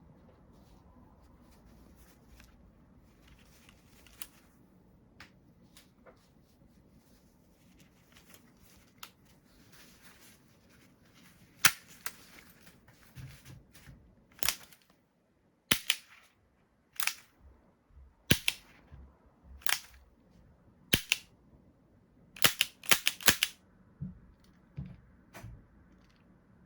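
Marushin model-gun Enfield No.2 Mk.1 revolver being dry-fired without caps: a series of sharp metallic clicks about a second apart as the hammer falls and the cylinder turns, then a quick cluster of clicks. Before that, faint small clicks of handling.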